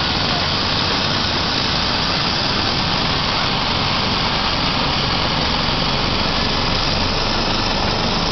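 ADAC air-ambulance helicopter of the Eurocopter EC135 type starting up on the ground: turbine engines and turning main rotor give a loud, steady noise.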